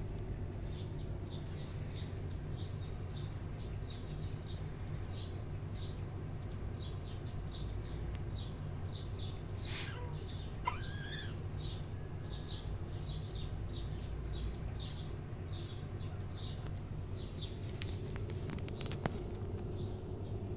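Small birds chirping steadily in short high chirps, about two or three a second, with one longer sliding call about ten seconds in. A couple of sharp clicks stand out, over a steady low background rumble.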